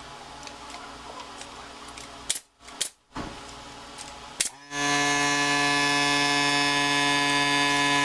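A few sharp shots from a pneumatic nail gun fastening trim, then an air compressor motor starts about five seconds in and runs with a steady hum.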